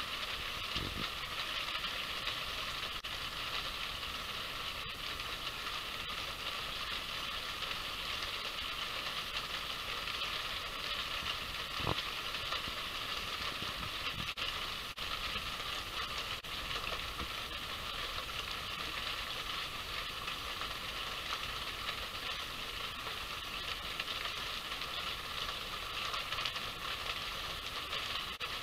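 Steady rain falling, a continuous even hiss with a few faint clicks scattered through it.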